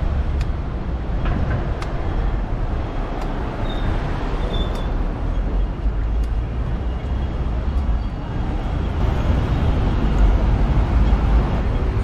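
City street traffic noise: road vehicles running past with a steady low rumble, getting louder near the end.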